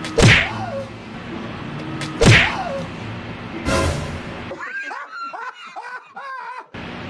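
Loud wet slaps at roughly two-second intervals, the splatter of the fake bird poop landing, then about two seconds of squawking seagull calls added as a sound effect near the end.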